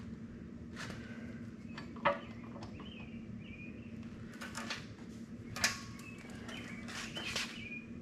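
Maytag two-stroke engine and its metal mount being shifted by hand under a washer frame during a test fit: a few scattered knocks and clicks of metal on metal and wood, the sharpest about two seconds in. A steady low hum runs underneath.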